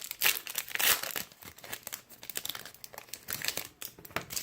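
A trading-card pack wrapper crinkling and tearing as it is opened by hand, with irregular crackles, loudest in the first second.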